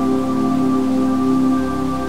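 Slow ambient music of held, layered tones, with a low bass note coming in about one and a half seconds in.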